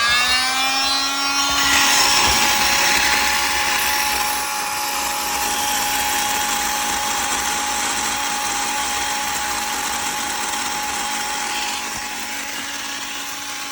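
A high-speed rotary cutting tool spins up with a rising whine and settles at a steady pitch. From about two seconds in, it cuts into a seized steel seat bolt with a harsh grinding hiss.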